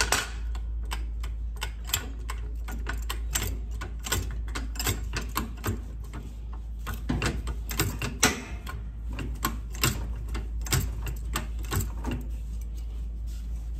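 Irregular sharp clicks and light knocks from hand-tool work under a car, some in quick runs and thinning out near the end, over a steady low hum.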